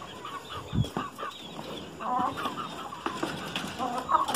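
Several chickens clucking, with short calls throughout, a louder call about two seconds in and another near the end. A single dull thump just under a second in.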